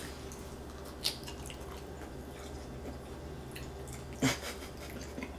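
Quiet chewing of tough, dried beef jerky over a steady low hum, with a short sharp sound about a second in and a louder brief one about four seconds in.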